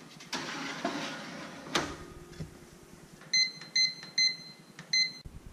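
Countertop toaster oven: a rattle and a sharp click as the door is shut, then four short high-pitched beeps as its control buttons are pressed to set the timer.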